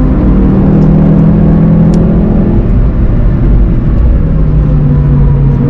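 Onboard sound of a VW Golf 7 GTI TCR's turbocharged four-cylinder engine pulling hard at speed, with tyre and road noise. The engine note drops about two and a half seconds in.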